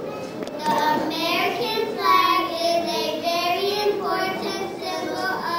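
Young children singing a song, with long held notes.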